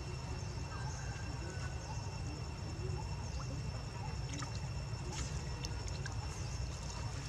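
Steady outdoor background: a low rumble with a constant high-pitched whine. A few faint clicks and light water sounds from macaques wading in a pond come in the second half.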